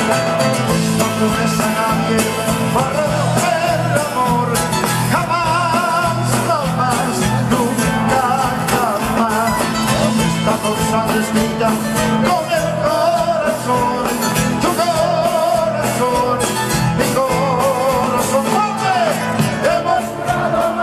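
Live band music with singing over a steady beat.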